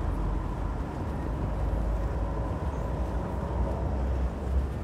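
City street background noise: a steady low rumble of traffic and wind buffeting the phone's microphone, with a faint steady tone underneath.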